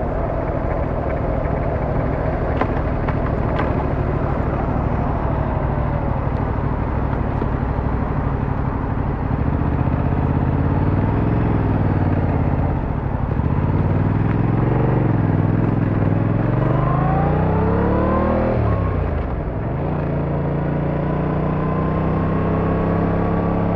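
Car engine and road noise while driving. The engine pitch dips, then climbs steadily as the car accelerates, drops sharply at a gear change, and begins climbing again.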